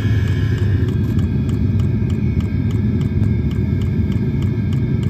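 Chinese diesel heater running under a minivan: a steady low combustion and blower rumble, with faint regular ticks about two and a half times a second that fit the fuel dosing pump.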